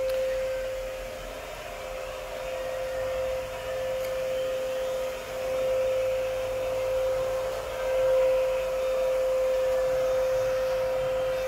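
Steady machine drone carrying one constant hum, rising and falling a little in level.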